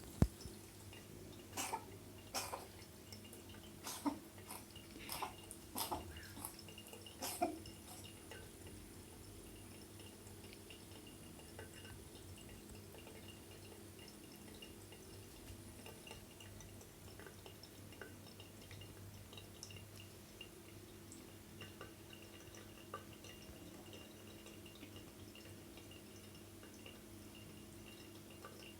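Domestic cat coughing: a run of about eight short, sharp hacking coughs over the first several seconds, then stopping, leaving only a faint steady hum.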